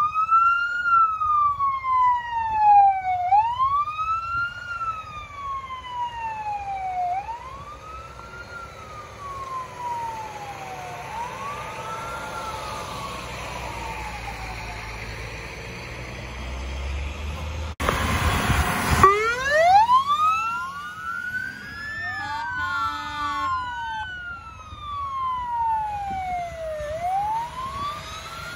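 Fire engine sirens wailing as the trucks pass, each sweep rising quickly and falling slowly, about every four seconds. About 18 seconds in there is a loud burst of noise lasting about a second. After it two sirens overlap, with a brief rapidly pulsing tone a few seconds later.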